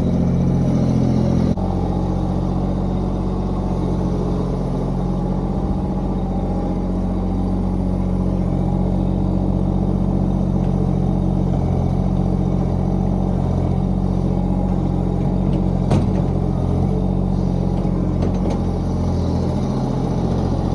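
Old tractor's engine running steadily under load while pulling a manure spreader, with one short sharp click about three-quarters of the way through.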